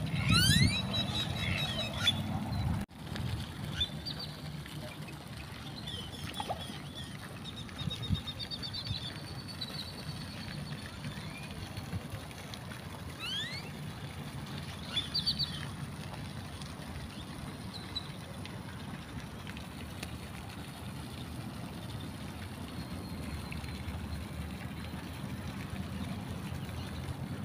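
Outdoor park ambience: a steady low rumble with small birds chirping and giving short rising whistles now and then. The calls are busiest in the first couple of seconds.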